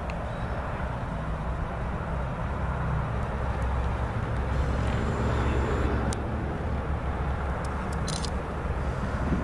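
CSX diesel locomotives approaching at low speed: a steady low engine rumble that swells slightly as they draw nearer, with a few brief high clicks or squeaks near the end.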